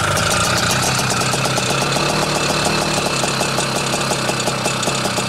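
IZh Planeta motorcycle's single-cylinder two-stroke engine idling evenly just after a cold start in frost, still running on the choke.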